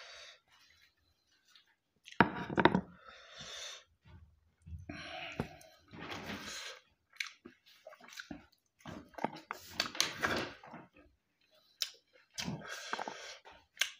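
Wet eating sounds from hand-eating rice with buffalo curry: chewing and squelching, with fingers mixing the food on the plate. The sounds come in irregular bursts with sharp clicks, the loudest a little after two seconds in.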